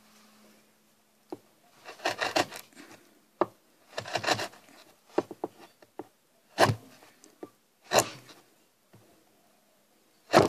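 A 32mm flat chisel cutting into wood: scraping, chipping cuts mixed with sharp knocks every second or two as the chisel chips away the waste. The loudest knocks come near the end.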